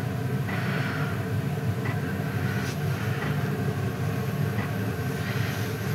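A steady low hum with a few faint light clicks from handling the fishing rig while it is being baited.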